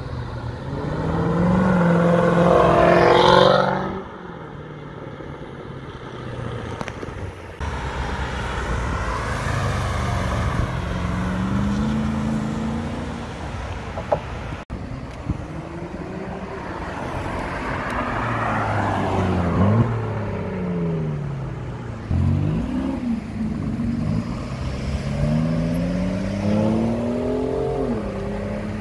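Performance car engines accelerating hard past one after another, in a series of short clips. The loudest is a deep engine climbing in pitch over the first few seconds. Later there are repeated sharp rises and drops in pitch as cars rev through the gears and upshift.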